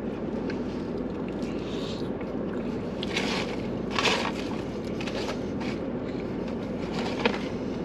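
Paper takeout food containers and bags rustling and crinkling in short bursts, about three and four seconds in and again near the end, with a small sharp click, over a steady low hum in a car cabin.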